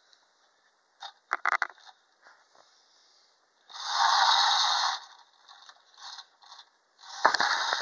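Clockwork spring motor of a Marx wind-up toy tank whirring as it unwinds, its gear train running in a loud stretch about four seconds in and again near the end. A few clicks come near the start, and a knock starts the second stretch as the tank is handled and turned around.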